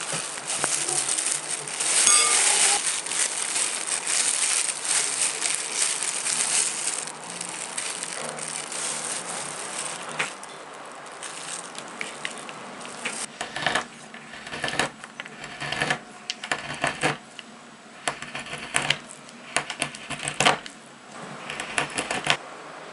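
Kitchen knife chopping and scraping strawberry chocolate into small pieces on a cutting board. A dense run of scraping and crunching at first, then separate sharp knocks of the blade on the board through the second half.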